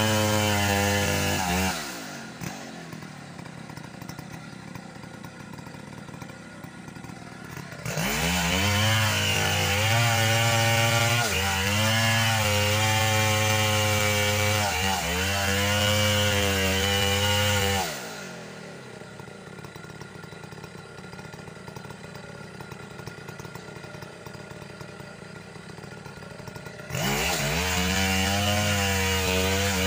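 Stihl chainsaw cutting into a felled trunk at full throttle, its pitch sagging as the chain bites into the wood. It drops to idle about two seconds in, revs back up into the cut at about eight seconds, falls to idle again at about eighteen seconds, and revs up once more near the end.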